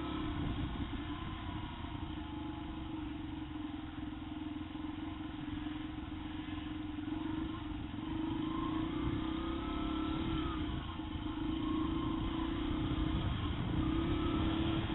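Yamaha TT-R125 trail bike's small single-cylinder four-stroke engine running under the rider, its pitch rising and falling with the throttle along the dirt trail.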